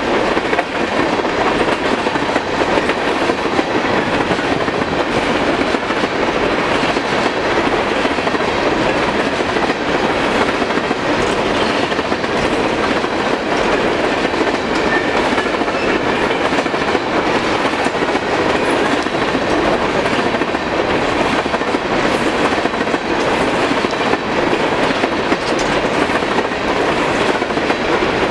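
Empty steel coal hopper cars of a long freight train rolling past at speed: a steady wheel-on-rail rolling noise with faint repeated clacks running through it.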